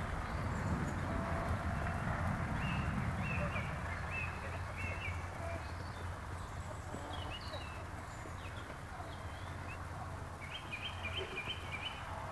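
Outdoor ambience: a steady low rumble with small birds chirping in the background, ending in a quick run of about half a dozen short chirps near the end.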